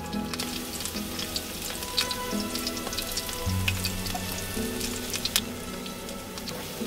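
Spaghetti sizzling in hot oil in a non-stick frying pan as it is tossed with metal pasta tongs, with a few sharp clicks of the tongs against the pan.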